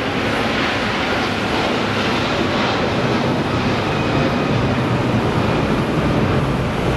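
The two Rolls-Royce Trent 700 turbofans of an Airbus A330-300 at takeoff climb thrust, passing low overhead: a loud, steady jet engine noise whose deeper part grows stronger in the second half.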